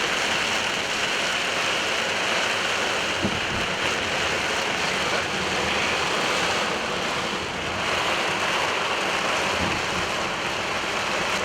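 Steady rain hitting a moving car, with the hiss of tyres on the wet road.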